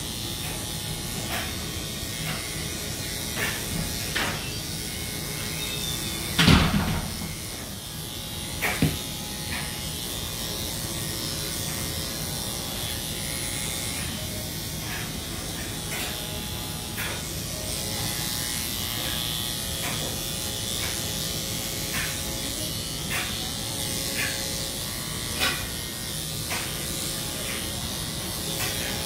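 Electric dog-grooming clippers running steadily through a Lhasa Apso's coat, with short sharp clicks throughout and a louder thump about six and a half seconds in.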